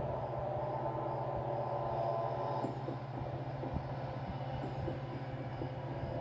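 A low, steady rumbling drone, with faint scattered clicks and ticks from about three seconds in.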